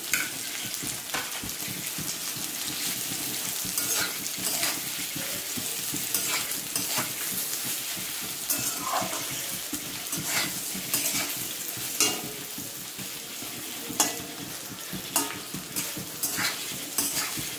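Potato matchsticks and chhana frying in oil in a steel kadai, sizzling steadily, while a metal spatula stirs them, scraping and clinking against the pan again and again.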